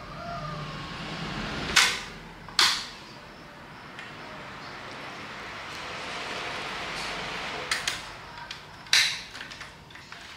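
Five sharp knocks from hands-on repair work: two about a second apart, a quick pair later, then one more, over a steady hiss.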